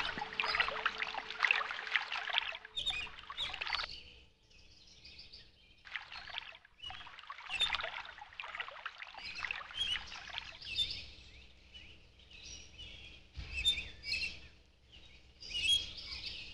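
Birds chirping and calling, with water splashing as it is poured onto leafy plants during the first few seconds.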